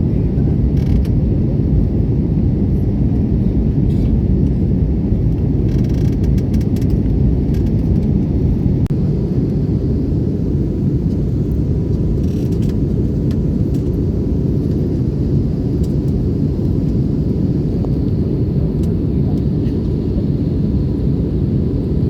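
Steady, even rumble of an Airbus A320neo's CFM LEAP-1A engines and airflow during the takeoff climb, with most of the sound low in pitch.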